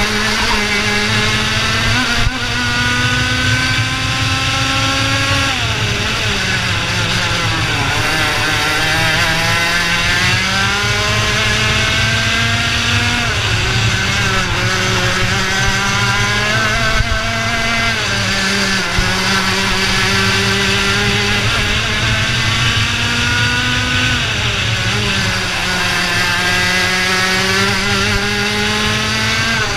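IAME Leopard 125cc two-stroke kart engine at racing pace, its revs climbing steadily along the straights and dropping sharply several times as the driver lifts for corners, over a steady rush of wind on the helmet camera.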